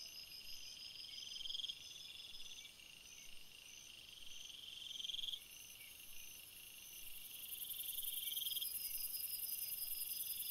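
Faint crickets chirping and trilling. A pulsed trill swells and cuts off sharply every few seconds over a steady chirp about twice a second, and a high, even buzz joins about seven seconds in.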